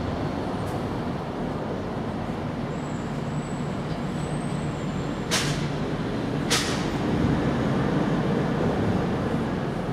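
Steady low rumble of traffic, broken near the middle by two short, sharp hisses about a second apart, like a large vehicle's air brakes; the rumble swells slightly afterwards.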